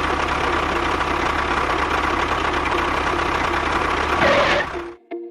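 A small motor running steadily with a dense, rattly hum, cutting off abruptly about five seconds in.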